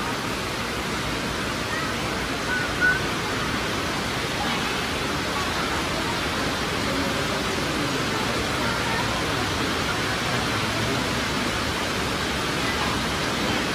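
Steady rushing background noise of a street, with faint voices in it and a brief knock about three seconds in.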